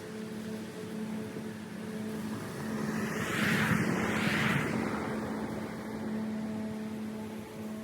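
Steady hum of a battery-electric lawn tool's motor. A louder swell of noise builds and fades over the middle, like something passing close by.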